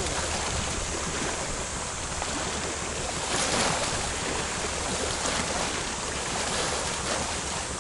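Seashore water: a steady wash of surf mixed with wind noise on the microphone, with a brief louder rush a little after three seconds in.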